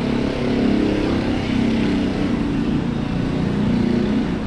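Engines of passing motor vehicles running, their drone swelling and fading several times.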